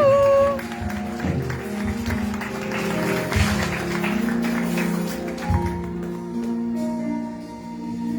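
Background music led by a plucked guitar playing steady held chords, with applause and a short held vocal note at the start; the applause fades out by about halfway through.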